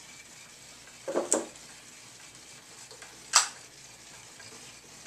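A short double knock about a second in as a board tunnel piece is handled and set down, then one sharp click about three and a half seconds in: the room's light switch being turned off.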